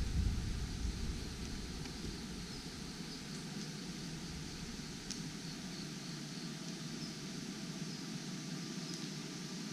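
Outdoor background noise with a low rumble that fades over the first two seconds, and faint, short, high chirps repeating throughout.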